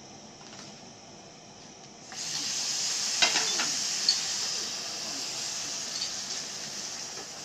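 Crêpe preparation sizzling in a hot copper pan over a tableside burner, starting suddenly about two seconds in and going on steadily, with a few clinks of the utensil against the pan.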